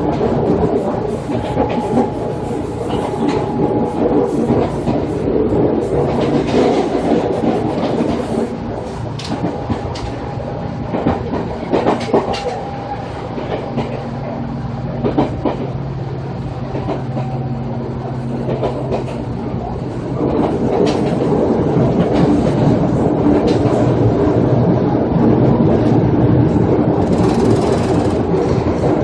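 Running sound of a JR 205 series electric train with external-fan traction motors: a steady hum of motors and fans mixed with wheel noise, and clicks as the wheels pass over rail joints. It grows louder about two-thirds of the way through.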